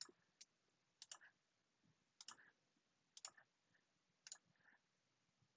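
Computer mouse clicking faintly, a click or a quick pair of clicks about once a second, as lines in a CAD sketch are selected one after another.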